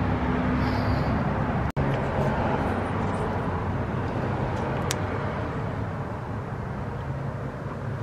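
A steady low mechanical drone over even background noise, with an instant dropout a little under two seconds in and a faint click about five seconds in.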